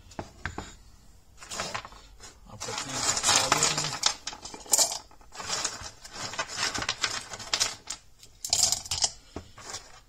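Rough stones clinking against each other and clattering as they are dropped by hand into the plastic barrel of a small 1-pound rock tumbler. It comes in several rattling bursts, the densest about three to four seconds in and again near nine seconds.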